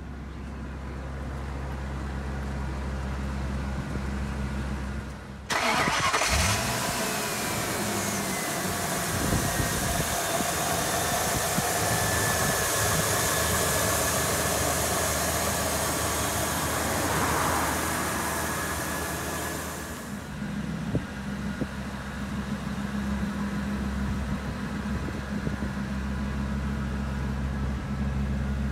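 Ford 6.8-litre Triton V10 gasoline engine idling with a steady low hum. For about fourteen seconds in the middle it sounds much louder and hissier, as heard up close at the open engine bay, then settles back to the low hum.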